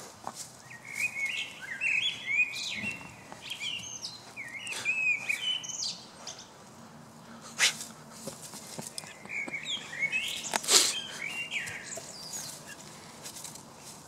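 Small birds singing in quick chirping phrases of short gliding notes, coming in three spells. Two sharp knocks break in, one about halfway through and a louder one about three quarters of the way through.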